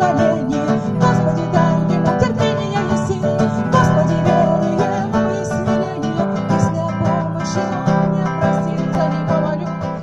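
Acoustic guitar played solo, an instrumental passage with no singing.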